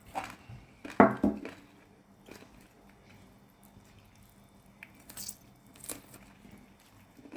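Food being handled during preparation: a few scattered soft knocks, clicks and squelches of food and utensils, the loudest about a second in, with quieter stretches between.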